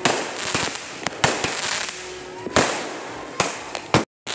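Aerial fireworks going off: a rapid string of sharp bangs, about nine in four seconds, with crackling between them.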